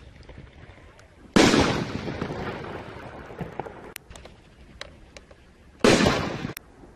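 Consumer artillery shells fired from a mortar tube: a loud boom about a second and a half in that fades out over a couple of seconds, a few small cracks, then another boom about six seconds in as a shell breaks.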